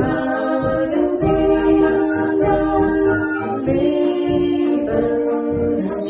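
Brass band playing a polka while singers with microphones sing the melody over it, held notes over a steady beat.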